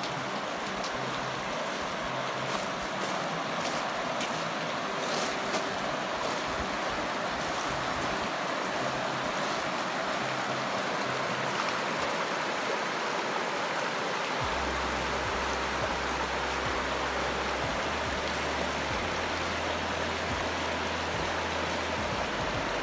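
A clear, rocky creek running over gravel riffles and stones, a steady rush of water.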